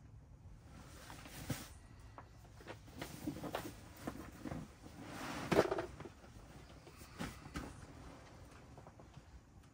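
Rustling and scuffing of a padded sleeping pad's fabric as it is folded and rolled up by hand, with soft knocks, and a louder rustle about five and a half seconds in.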